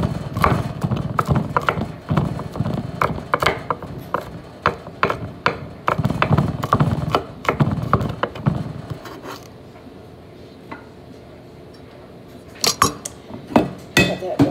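Chef's knife chopping on a wooden cutting board: quick, uneven knocks of the blade on the board, about three or four a second. The chopping stops about two-thirds of the way through, and a few sharper knocks follow near the end.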